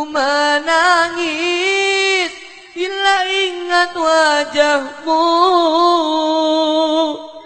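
Background music: the slow, mournful melody of a song, carried in long wavering held notes with short pauses between phrases.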